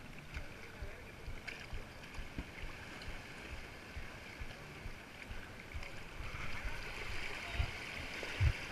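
Shallow sea water sloshing and splashing around rocks and wading legs, growing louder over the last few seconds. Low thumps on the microphone throughout, two heavier ones near the end being the loudest sounds.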